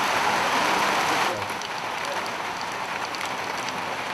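Steady hiss of rain falling. About a second in it drops to a quieter, thinner hiss with scattered light ticks.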